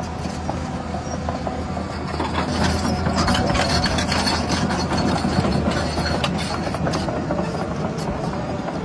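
Radio-controlled model vehicle running: a steady engine-like hum with gear noise and scattered clicks, getting louder from about two and a half seconds in and easing off near the end.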